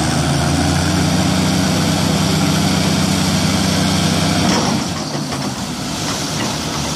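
Heavy diesel engines of an excavator and a tracked loader running hard under load while working to free the loader from deep mud. The engine note is steady and strong at first, then eases and drops in level about four and a half seconds in.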